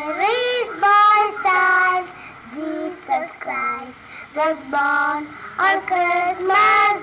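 Two young girls singing a song together into a microphone in a series of held, sliding notes, with no instruments between the phrases.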